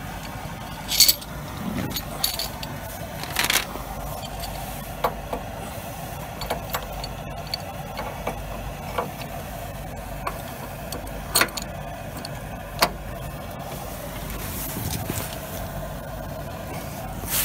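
MAPP gas torch burning with a steady roaring hiss while heating a steel bracket, with a few sharp metallic clinks and knocks from grips working the metal.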